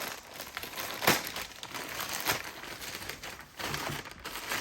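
Packaging crinkling and rustling as a camera accessory is handled and unwrapped, with a couple of sharper crackles about a second in and around two seconds in.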